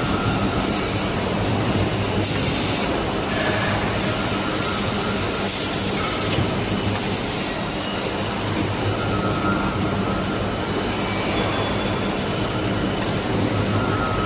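Orbital horizontal stretch-wrapping machine running: the film ring turning around a long profile as it feeds along a roller conveyor. It makes a steady mechanical running noise with a low hum and occasional brief squeaks.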